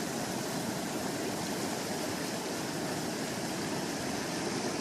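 Steady rush of falling water from a mountain waterfall.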